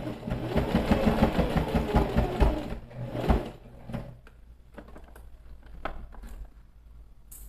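Sewing machine stitching a topstitch along a curved seam in a quick run of about three seconds, then stopping for a pause. A few light clicks follow, and a sharper one near the end.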